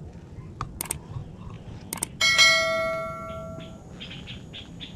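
A single bell-like metallic ring, struck about two seconds in and fading out over a second and a half, after a few sharp clicks. Faint high chirps of birds or insects follow near the end.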